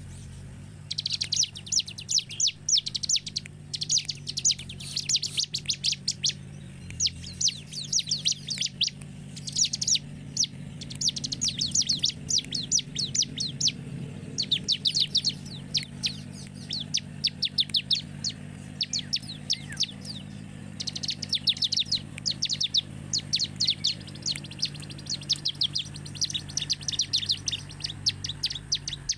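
Bar-winged prinia (ciblek) singing: rapid runs of sharp, high chirps in bursts of a second or two, broken by short pauses and repeated over and over.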